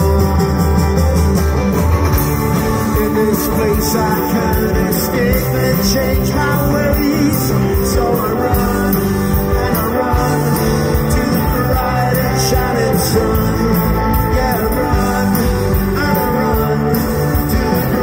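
Rock band playing live through a PA: electric guitars and drums in an instrumental stretch of the song.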